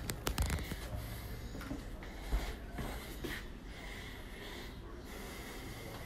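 Handling noise and footsteps from someone walking with a phone: a few sharp clicks right at the start and one heavier thump a little over two seconds in, over a steady low hum.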